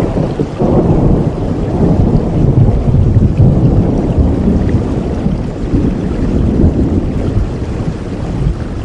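A long rumble of thunder over heavy rain, swelling about half a second in and easing off near the end.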